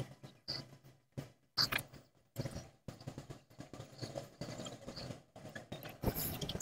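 Gas welding torch flame hissing while filler rod is fed into a stainless steel exhaust header joint; the hiss comes and goes in short broken patches with small irregular ticks.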